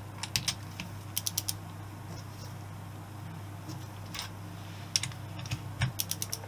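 Ratchet of a small torque wrench clicking in short bursts of quick clicks as cylinder head nuts are run down in the first light tightening pass, over a steady low hum.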